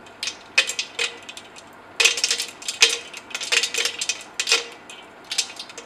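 Irregular clinking and rattling of hard objects against lab glassware, several small clicks a second, some with a brief glassy ring, from the stirred flask-and-ice-bath setup.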